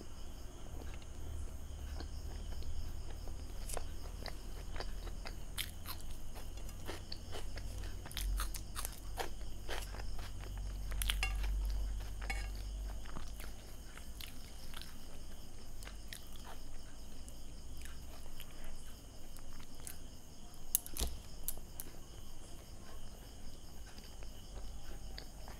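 Close-miked chewing of soft pav bhaji and bread roll, with many small wet mouth clicks and smacks scattered throughout.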